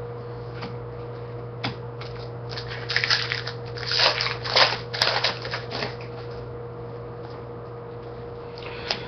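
Trading cards and their pack being handled by hand, with bursts of rustling and crinkling between about three and six seconds in and a few light clicks, over a steady low hum.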